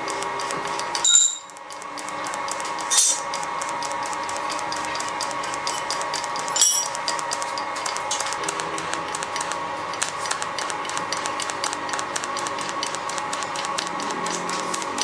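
TIG welding arc on a metal pipe joint: a steady electric buzz with rapid fine crackling. Three brief louder bursts come about a second in, at three seconds and at six and a half seconds.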